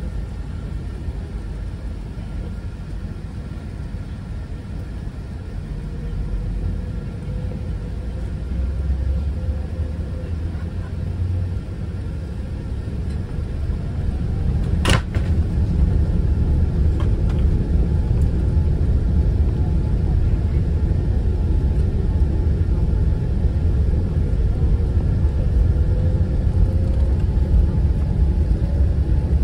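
Airbus A380 cabin rumble as the airliner, lined up on the runway, powers up for takeoff. The deep engine and rolling noise grows louder in steps, with a single sharp click about halfway and a faint rising whine near the end.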